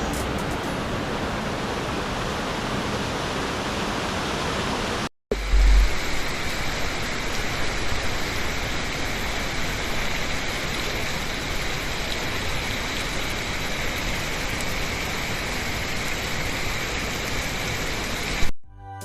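A waterfall's steady rush of falling water, a dense even hiss. It breaks off briefly about five seconds in, with a low bump just after it resumes.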